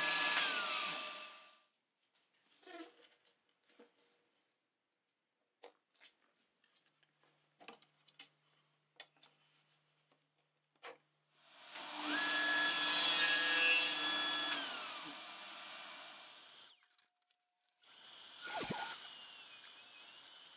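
Table saw winding down after a cut, then small knocks as a strip of reclaimed oak flooring is set against the miter sled. About halfway a second cut: the saw runs loud for about three seconds, then its motor spins down with falling pitch. A fainter steady whine with a brief swoop follows near the end.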